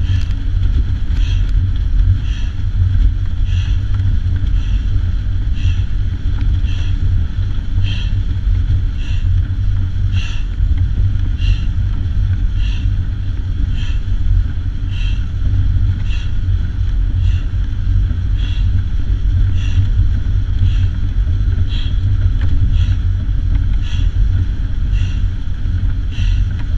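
Steady rush of air and low rumble inside the cockpit of a pedal-powered aircraft in flight, with a light click repeating about once a second as the pilot pedals.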